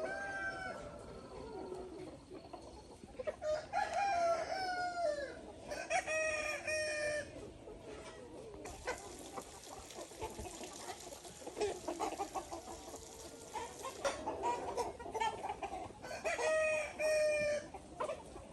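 Chickens calling: several drawn-out calls that slide down in pitch, about four, six and seventeen seconds in, with shorter clucks and scratchy noises in between.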